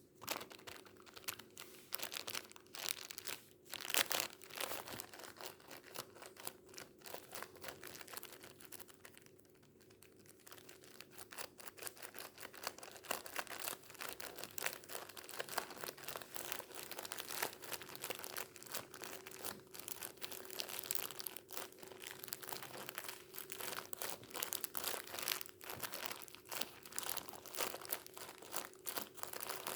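Tissues crinkled and crumpled close to the microphone: a dense run of crackles and small pops, easing off briefly about nine seconds in and then picking up again.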